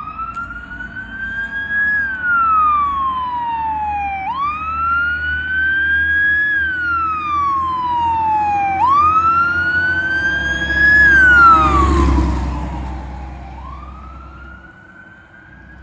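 1982 Hahn fire engine's electronic siren sounding a wail, rising for about two seconds and falling for a little over two, over and over. A low rumble runs under it; the sound is loudest about eleven to twelve seconds in as the truck passes, then fades away.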